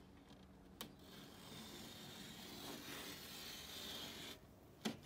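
X-Acto craft knife slicing along a sheet of vinyl contact paper: a tap about a second in, then a steady, faint rasping cut for about three seconds that stops abruptly.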